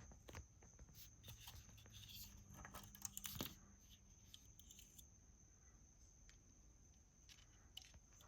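Faint clicks and rustling of small parts and wires being handled, with a cluster of light taps a few seconds in.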